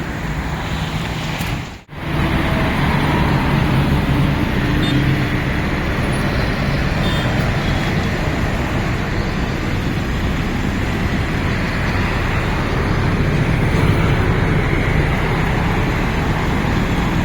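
A motor vehicle engine running steadily amid road traffic noise. The sound cuts out briefly about two seconds in.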